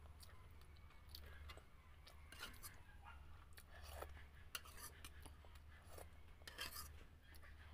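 Faint eating sounds: chewing and small irregular clicks, like utensils or bones being handled, over a low steady hum.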